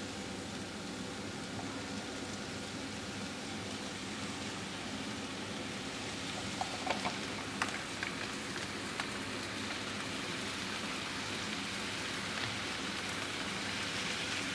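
Chicken and vegetable stir-fry sizzling steadily in a hot frying pan while thick stir-fry sauce is poured over it, with a few light clicks about halfway through.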